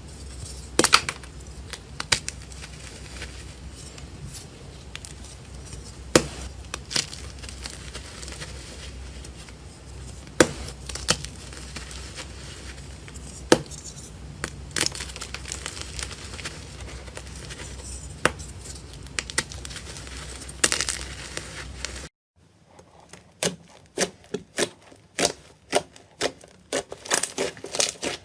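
Slime being pressed and squished by hand, with scattered sharp pops and clicks over a steady low hum. After an abrupt cut about two-thirds of the way through, a quick run of crackling clicks follows.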